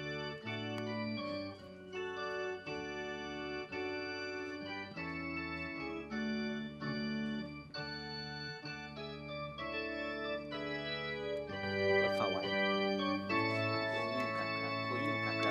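Yamaha electronic keyboard on an organ sound playing a slow run of sustained chords, a new chord every second or so.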